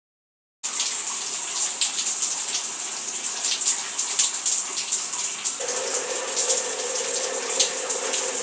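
Shower spray running and splashing onto a tiled shower, starting suddenly about half a second in. About five and a half seconds in, a steady hum joins the hiss of the water.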